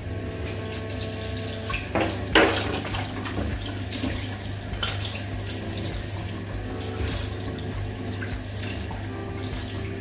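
Tap running into a bathroom sink: a steady rush of water, louder for a moment about two seconds in.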